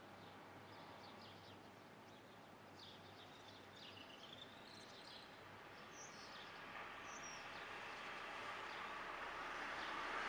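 Faint bird chirps over a quiet outdoor hiss. In the second half a rushing noise grows steadily louder.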